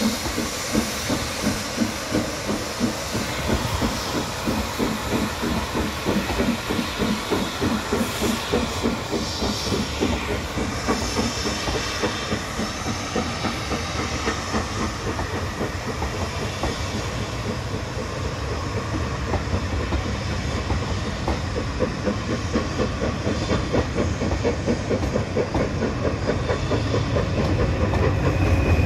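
LMS 8F 2-8-0 steam locomotive hauling a train of coaches, its exhaust beating in a steady, even rhythm over a hiss of escaping steam. A low rumble of the carriages' wheels on the rails grows louder near the end.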